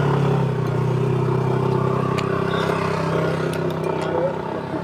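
A motor vehicle's engine running steadily nearby, its hum slowly fading, with a few light clicks over it.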